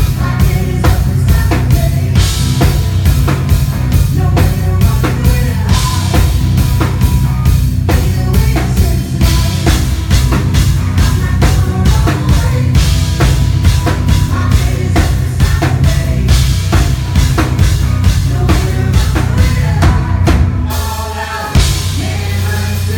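Live band playing loud, with a drum kit keeping a steady beat on bass drum and snare under guitars. About twenty seconds in, the drums drop out for a moment, then a hard hit and the band carries on.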